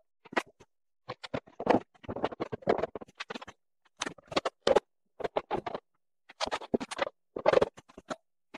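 Prismatic LiFePO4 battery cells and insulation plates being slid and set into a stainless-steel battery frame: several bursts of scraping and knocking with short silent gaps between them.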